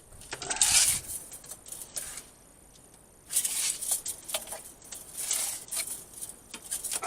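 Several short bursts of scraping and rustling with a few light clicks and taps, from hands working with materials.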